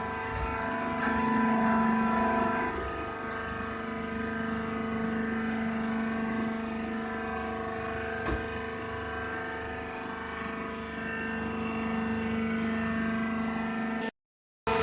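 Automatic wood shaving baler's hydraulic press running with a steady, even-pitched motor-and-pump hum. There is a single short knock about eight seconds in, and the sound cuts off suddenly just before the end.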